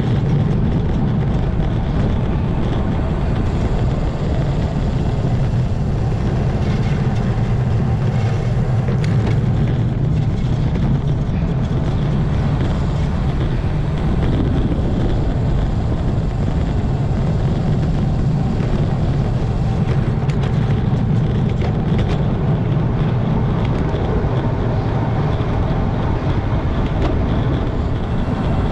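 Wind rushing over the camera's microphone on a fast road-bike descent at 20 to 34 mph: a steady, loud, low rumble.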